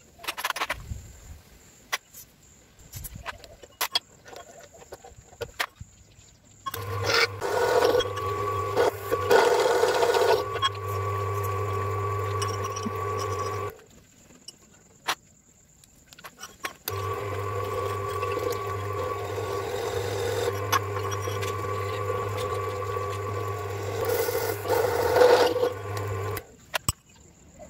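Electric drill press running and boring holes through a steel flat bar, its motor giving a steady hum in two stretches: from about a quarter of the way in to about halfway, then again from about 17 s until shortly before the end. Between the stretches and at the start there are light clicks and knocks.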